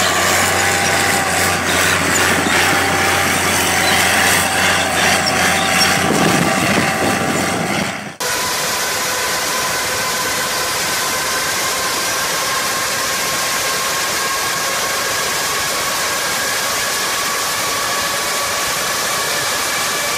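A tracked vehicle's engine running loudly as it drives through dirt, then a sudden cut about eight seconds in to a Rolls-Royce Trent turbofan running on the ground with a steady whine.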